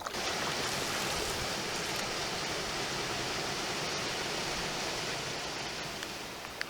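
Steady hiss of water, rain or moving river, that starts abruptly and eases off near the end.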